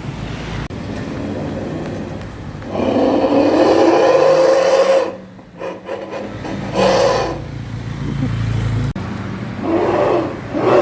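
Petrol car's engine through a twin-outlet SUOS 'ngorok' aftermarket exhaust, being revved. It swells loudly for about two seconds, drops away sharply with a few brief sputters, gives a short blip, then rises again near the end.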